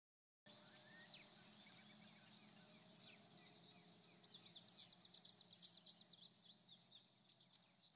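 Faint countryside ambience: scattered bird chirps and, a little after halfway, a quick run of repeated high notes, over a steady high insect chirring. It fades in about half a second in.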